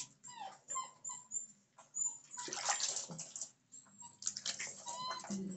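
Dapple dachshund puppy whimpering, with short high cries falling in pitch and a held whine near the end, while water splashes as a hand scoops it from a basin.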